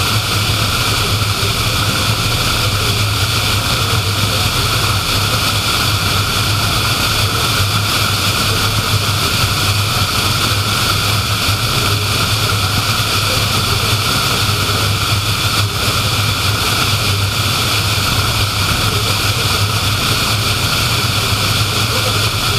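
Car driving at steady speed on a paved road: a constant drone of tyre and road noise with a low engine hum, unchanging throughout.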